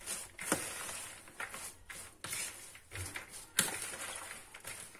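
Shredded raw cabbage, leek and parsley being stirred and tossed with a spoon and by hand in a plastic bowl: repeated crisp rustling strokes with a few sharper clicks of the spoon against the bowl.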